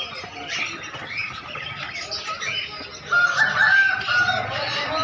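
Many small caged birds chirping together, with a rooster crowing loudly about three seconds in.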